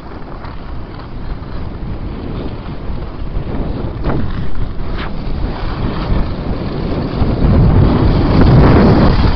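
Wind buffeting the microphone of a camera carried by a downhill skier, mixed with the skis sliding on packed snow. The rush grows louder through the run and is loudest near the end.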